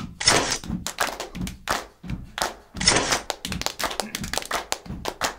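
Instrumental stretch of a song: a busy percussion beat of sharp drum hits and clap-like strikes over low thuds.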